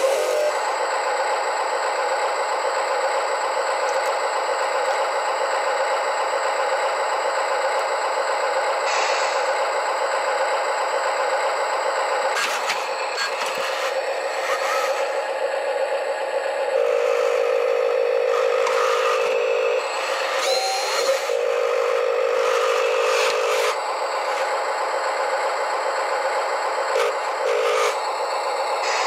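RC model wheel loader running its motors and electronic engine sound, a steady whining hum with occasional clattering and scraping as it moves on the trailer's ramps. A louder buzzing tone comes in twice in the second half, in step with the loader working its bucket.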